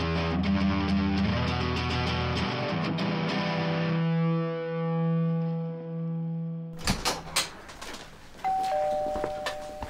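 Electric guitar title music whose last chord rings out and fades. About seven seconds in it gives way to a few sharp knocks, and near the end a two-note electronic door chime sounds as someone comes through the door.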